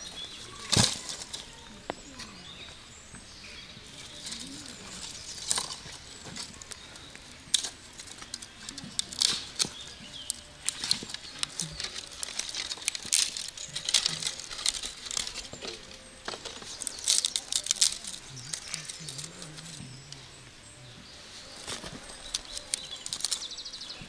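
Food-preparation handling sounds: irregular taps, clicks and light rustling, with a few sharper knocks scattered throughout.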